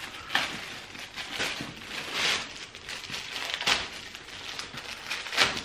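Clear plastic protective wrap crinkling and rustling as it is pulled and peeled off a new handbag's strap, in irregular handling noises with a few louder crackles about two seconds in, nearly four seconds in and just before the end. The wrap is stubborn and hard to get off by hand.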